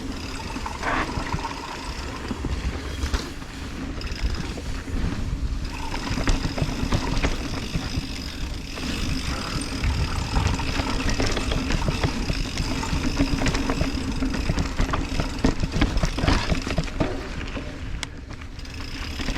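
Mountain bike rolling down a dirt downhill trail. Wind buffets the microphone, the tyres run over dirt, and the bike rattles and clicks over the bumps.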